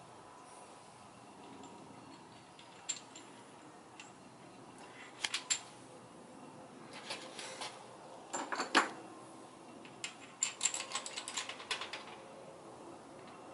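Light metallic clicks and clinks of 6.7 Cummins rocker arms and valve-train hardware being handled and set in place on the cylinder head. They come in scattered clusters, with the loudest clink about two-thirds of the way through, followed by a quick run of small clicks.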